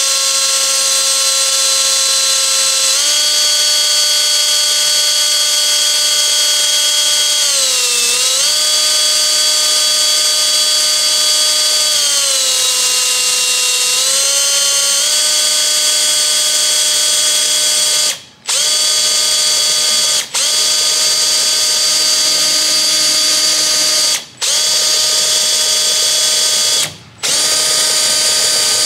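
Electric drill running at speed, drilling holes in a car's rear spoiler for nutserts: a steady motor whine whose pitch dips as the bit bites, sags for a couple of seconds midway, and stops briefly several times near the end as the trigger is let off.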